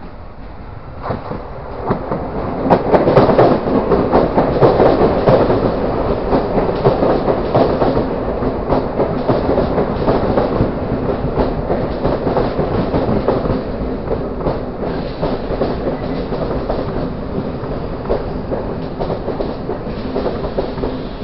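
Toshiba electric multiple-unit train pulling into the station past the platform. Its wheels clatter over the rail joints, loudest a few seconds in as the leading cars go by, then settle into a steady rumble that slowly eases.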